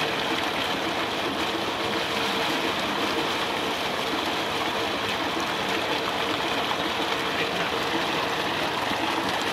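Tubewell water gushing steadily from a pipe into a cement tank, a constant splashing rush.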